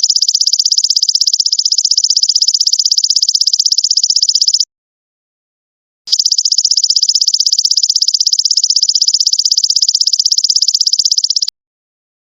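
Golden locust (belalang emas) stridulating in shrill, fast-pulsed buzzing trills. Two trills of about five seconds each, separated by a pause of about a second and a half; the second trill stops shortly before the end.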